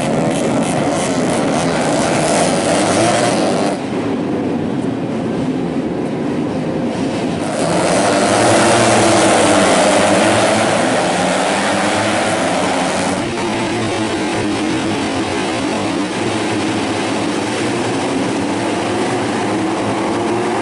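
Tuned four-stroke underbone race motorcycles of up to 150cc running hard at high revs, with the engine noise shifting abruptly a few times as bikes come and go.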